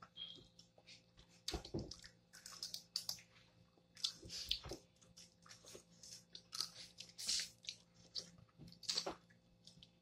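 Wet boiled peanut shells being cracked open by hand and the peanuts chewed and eaten from the shells, in irregular short crackles and clicks.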